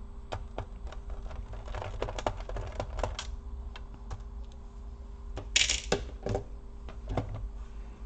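Small clicks and taps of a screwdriver and screws against a laptop's plastic bottom case as the last screws are taken out, with a brief louder scrape about five and a half seconds in.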